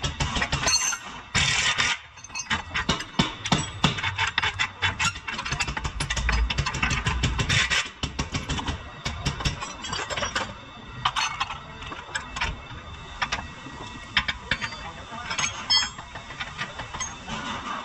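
Pneumatic impact wrench hammering in bursts on the front lower control arm bolts, with clinks of metal tools; the hammering is densest in the first half, then gives way to scattered clinks.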